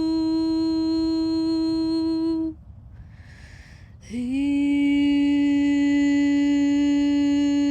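A woman's voice humming a long, steady note in a sound ceremony. The note stops about two and a half seconds in, there is an audible in-breath, and then a slightly lower note begins with a small upward scoop and is held.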